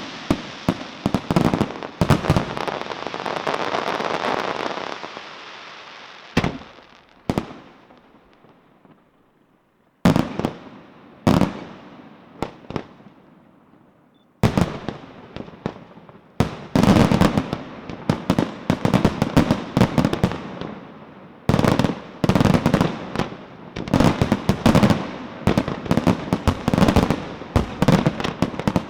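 Aerial fireworks display: shells bursting in rapid volleys with a crackling wash. The bursts thin to a few single bangs with a near-lull about a third of the way in, then build again into dense volleys of bangs.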